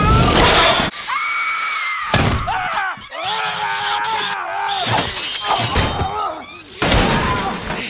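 Film action sound mix of an attack: people screaming in panic over loud crashes and breaking glass. The biggest crashes come at the start, about two seconds in, and near the end.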